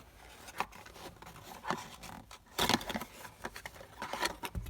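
A replacement plastic door lock bezel's parts packaging being opened by hand: scattered clicks and crackly rustling, loudest about two and a half seconds in.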